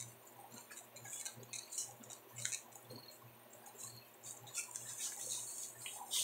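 A person biting into and chewing a slice of pizza close to the microphone: quiet wet mouth sounds with scattered small clicks.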